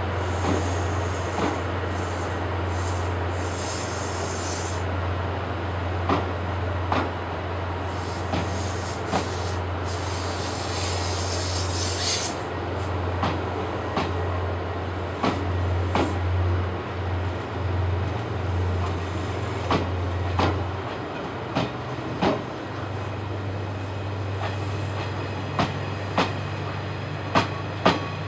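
Passenger cars of The Royal Express being hauled slowly past as unpowered rolling stock: the wheels clack in single sharp clicks over the rail joints, over a steady low hum, with bursts of high hiss in the first half.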